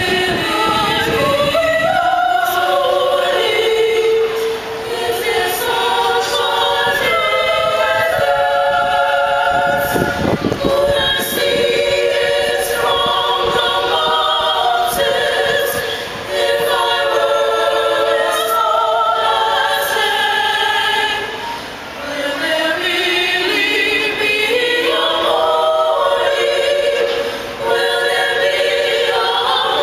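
Women's choir singing a cappella: several voice parts hold sustained chords that move slowly from one to the next, with brief breaths between phrases a few times.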